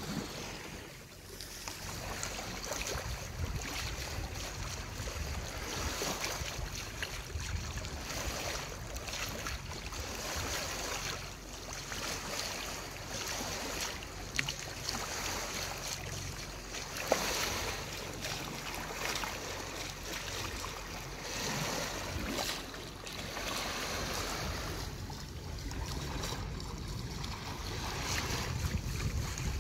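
Sea water washing and splashing along the hull of a sailing yacht moving through calm water, swelling and easing every second or two, with wind on the microphone.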